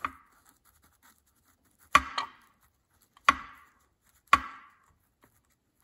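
A pen tapping and striking down on a legal pad backed by a hard clipboard while figures are written. There are about five sharp taps with a short ring, the first near the start and the rest spaced about a second apart, two of them close together about two seconds in.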